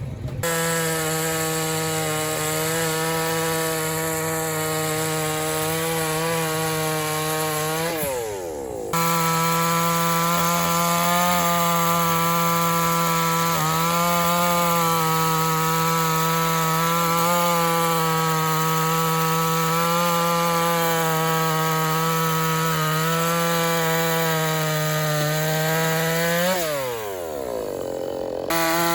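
Chainsaw running at high revs, cutting neem wood. Twice the throttle is let off, about eight seconds in and again near the end, and the engine note drops briefly before it revs back up.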